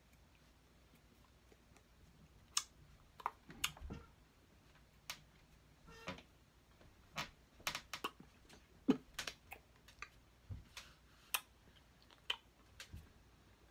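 Irregular light taps and clicks, more than a dozen at uneven intervals, from hands and fingers striking each other and the face and body while signing in sign language.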